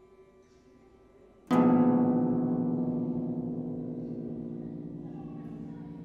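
Concert harp: faint lingering tones, then about a second and a half in a sudden loud low chord is struck. It rings with many overtones and slowly dies away.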